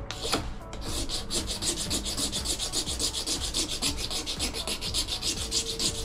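Sandpaper rubbed by hand over a resin-filled birch wood slice in quick, even back-and-forth strokes.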